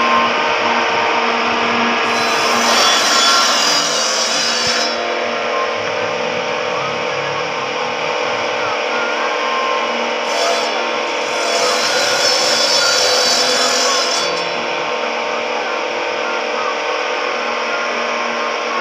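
Large motor-driven circular saw on a wooden sawbench, running steadily, cutting through wood twice: once from about two to five seconds in and again from about ten to fourteen seconds in, each cut adding a harsh rasping over the steady run of the blade.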